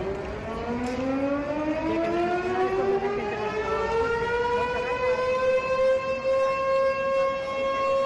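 Air raid siren sounding, its pitch rising slowly for the first several seconds and then holding a steady wail.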